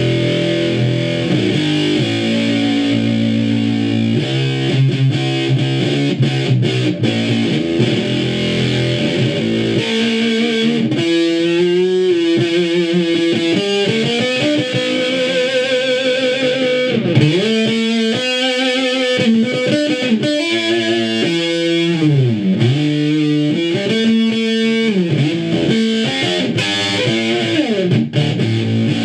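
Electric guitar played through a 1960s Univox Uni-Fuzz fuzz pedal on its Destructo setting: thick, dark fuzz-distorted notes, held and bent with vibrato, with pitch slides downward in places. The pedal's power supply has been rebuilt to remove the 120 Hz mains buzz.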